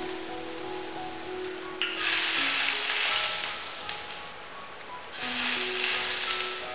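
Smoking-hot oil poured from a ladle over minced garlic, Sichuan peppercorns and dried chillies, sizzling loudly in two bursts: the first starts about two seconds in, the second about five seconds in.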